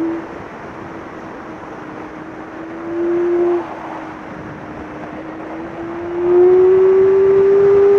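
Yamaha YZF-R6 inline-four sportbike engine at track speed, heard from an onboard camera with wind rush. The throttle closes at the start and the engine drops to a lower, quieter note, with a brief burst of throttle about three seconds in. From about six seconds the throttle opens and the engine pulls loud with a slowly rising note.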